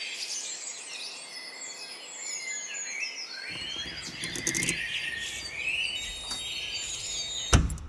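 Several small songbirds chirping and singing in quick, overlapping phrases, with a low rumble coming in partway through and one sharp knock near the end.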